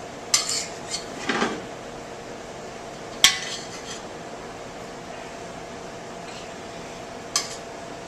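Metal serving utensils clinking and scraping against a serving platter and dishes as food is plated, in a handful of short clatters with the sharpest about three seconds in, over the steady hum of a kitchen fan.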